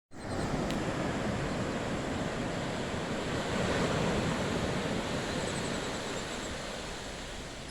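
Ocean surf washing on the beach, a steady rushing that swells about halfway through and eases toward the end, with wind on the microphone. Faint high chirping comes in at the start and again a little past the middle.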